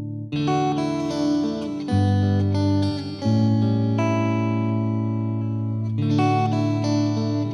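Guitar music: plucked notes with sustained ringing chords, changing every second or so.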